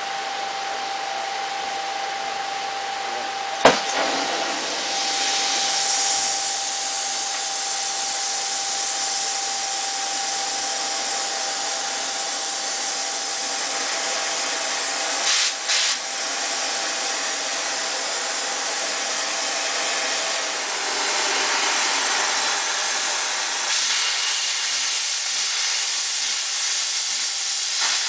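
Oxy-acetylene torch with a Harris automatic handle: a sharp pop a few seconds in as the flame lights, then the flame hissing steadily. Near the end it is cutting steel.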